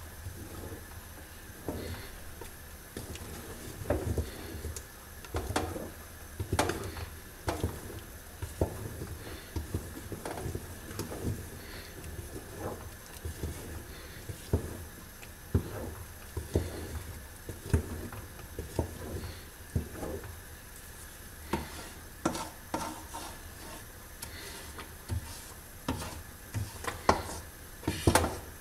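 A wooden stick stirring and beating thick sesame-and-hazelnut paste in an aluminium pot. It knocks and scrapes against the pot about once a second, at an irregular pace.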